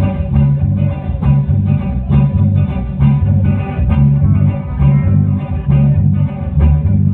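Loud band music with a prominent bass guitar line and plucked guitars over a steady beat.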